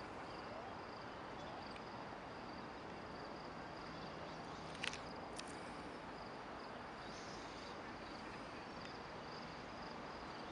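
Faint outdoor ambience: insects chirping steadily in a high, pulsing band over a low hiss, with a sharp click about five seconds in and a smaller one half a second later.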